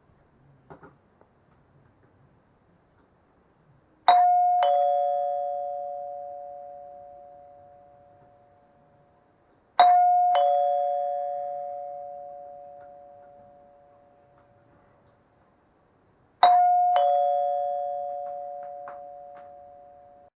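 Bus stop-request chime from a Jotetsu bus, run on 24 V, sounding three times. Each time it strikes a two-note ding-dong, a higher note then a lower one, and both ring on and fade slowly.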